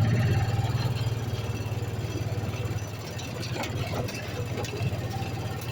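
ATV engine running at low speed while being ridden along a rough woods trail, louder at the start and easing off slightly about halfway through, with a few short knocks and rattles over it.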